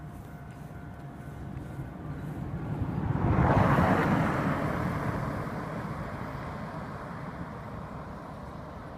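Cassiopeia sleeper train approaching and passing on the line, a rumble of wheels and hiss that builds up, is loudest about three and a half to four seconds in, then slowly fades as it goes by.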